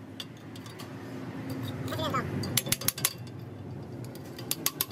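Steel tools and small metal pieces clinking against a steel work stand: a few sharp clinks about two and a half seconds in and again near the end, over a low steady hum.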